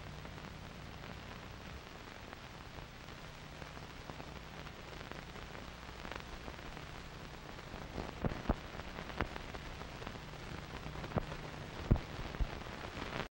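Surface noise of an old optical film soundtrack with nothing recorded on it: a steady hiss and low hum, with scattered clicks and pops from about eight seconds in.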